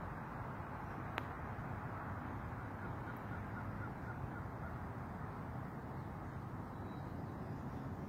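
Steady outdoor background rush with a low rumble, a single sharp click about a second in, and a quick string of faint bird calls around the middle.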